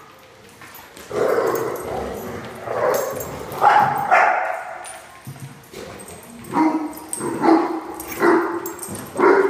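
Dogs play-barking and yipping during group play. A few separate barks come in the first half, then a run of barks at an even pitch, roughly one or two a second, in the second half.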